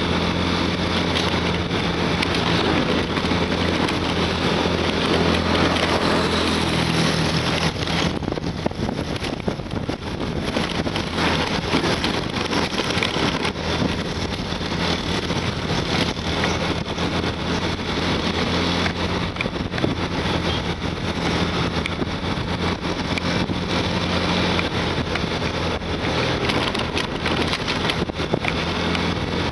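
Yamaha motorcycle engine running at cruising speed with a steady note, under a heavy rush of wind noise on the microphone while riding. The sound dips briefly about eight seconds in.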